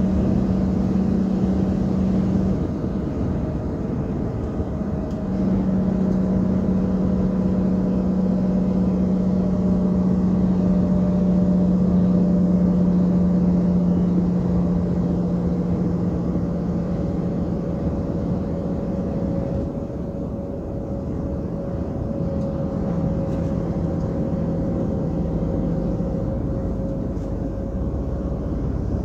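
Semi-truck's diesel engine and road noise heard inside the cab while cruising at highway speed: a steady drone with a low hum that drops away briefly a few seconds in, then returns.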